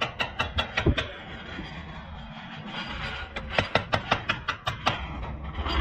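Hammer striking a steel punch held against a Hyundai Elantra's wheel hub to drive out a broken wheel stud: a quick run of sharp blows, a pause of about two seconds, then another quick run.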